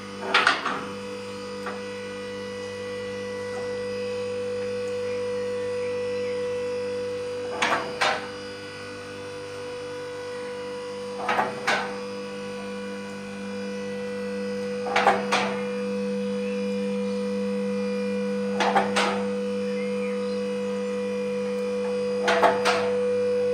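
Four-post car lift raising a car: its electric power unit runs with a steady hum, and about every three and a half seconds a pair of sharp metallic clacks sounds as the lift climbs, typical of the safety locks clicking over their latch rungs.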